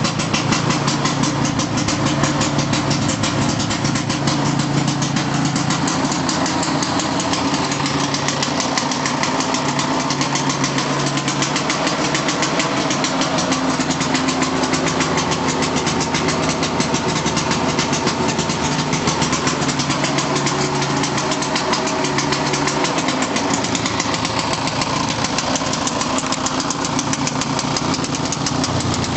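Vintage snowmobile engine running steadily, with rapid even firing pulses.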